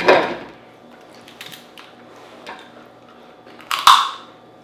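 Close-miked eating of Dungeness crab: a sudden crack of crab shell right at the start, faint small clicks and chewing, then a loud wet mouthful just before the end as crab meat is taken into the mouth.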